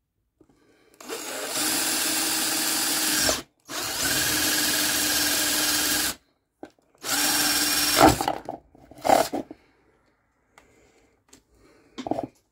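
Craftsman cordless drill with a 1-inch spade bit boring through a plastic chainsaw top cover, running in three steady spells of two to three seconds each with a constant whine. These are followed by a couple of short blips near the end.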